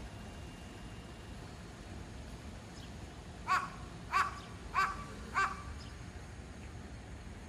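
A crow cawing four times in quick succession, the calls evenly spaced a little over half a second apart, midway through.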